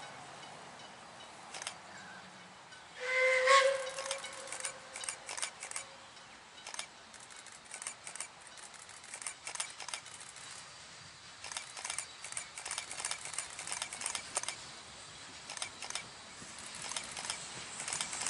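Puffing Billy NA-class narrow-gauge steam locomotive sounding one short whistle blast about three seconds in, the loudest sound. It is followed by a run of sharp exhaust beats and hissing steam that grow louder toward the end as it approaches.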